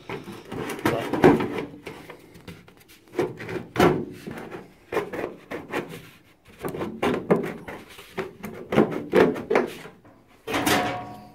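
Flexible plastic fresh-air duct being pushed and worked into its slot in a classic Mini's front panel: plastic rubbing and scraping against the metal bodywork in a series of irregular scrapes and knocks, with a brief squeak near the end.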